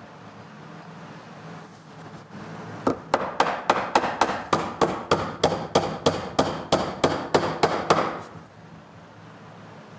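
A hammer driving a galvanized finish nail into pine boarding: a quick run of about twenty light taps, some four a second, starting about three seconds in and stopping near eight seconds.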